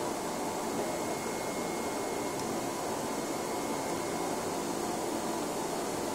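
Flatbed CNC cutting plotter running while its knife head cuts a PVC vinyl sheet: a steady rushing hum with a faint high whine on top.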